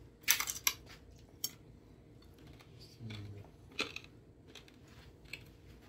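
Crunching bites into a porchetta sandwich with crisp pork crackling: a cluster of loud crunches about a third of a second in, then chewing with a few scattered crunches.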